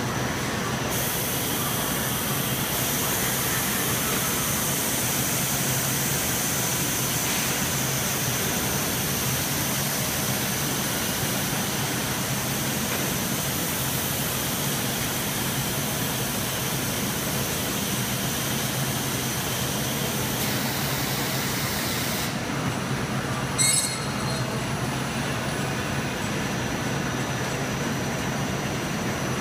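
Steady mechanical running noise of a robotic palletizing cell: robot arms and roller conveyors at work. A high hiss runs through most of it and cuts off suddenly near the end, followed shortly by a single sharp clank.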